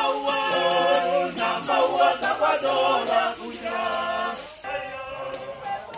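A small group of men and women singing together, accompanied by a hand shaker keeping a steady beat. The singing grows quieter about two-thirds of the way through.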